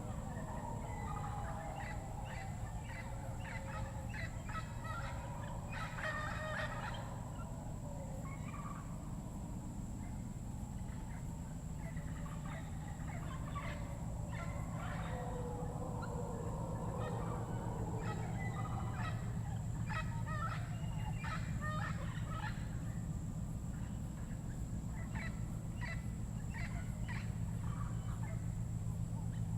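Panamanian rainforest chorus at sunset: many short bird chirps and calls scattered throughout, with lower wavering calls that rise and fall. Behind them run a steady high whine and a low steady hum.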